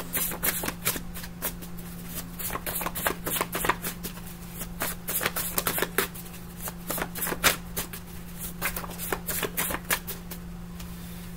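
Deck of reading cards being shuffled by hand: a quick, irregular run of crisp clicks and riffles, over a faint steady low hum.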